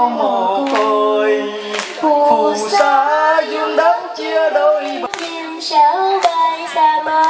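A young woman singing a slow melody into a handheld microphone, holding long notes with a wavering vibrato.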